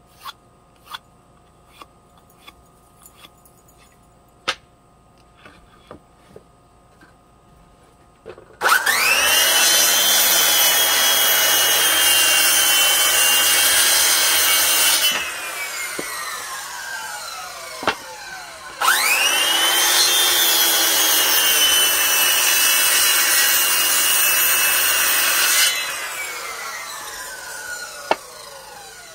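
Electric woodworking power tool run twice, each time spinning up quickly to a steady whine for about six seconds, then winding down over a few seconds after switch-off. Light knocks of wood being handled come before the first run.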